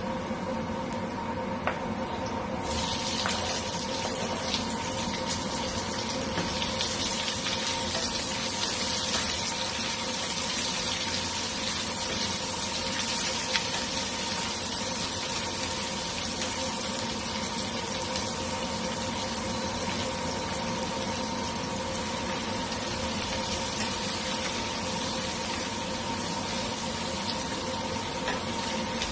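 Chopped garlic sizzling in hot oil in a stainless steel frying pan, stirred with a wooden spatula; the sizzle turns suddenly louder and brighter about three seconds in as more chopped pieces are scraped into the pan, then keeps on steadily.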